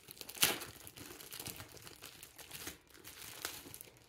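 Clear plastic packaging pouch crinkling as it is pulled open by hand, in irregular crackles with the loudest about half a second in.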